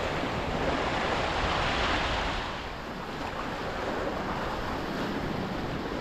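Sea waves washing against rocky shore, a swell of surf a little louder about two seconds in, with wind buffeting the microphone.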